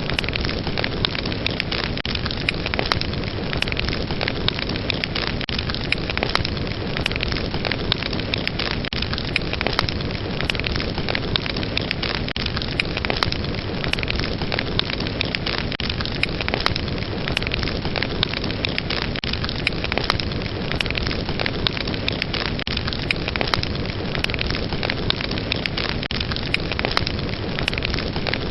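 Wood fire burning steadily, with a dense run of sharp crackles and pops over a constant hiss.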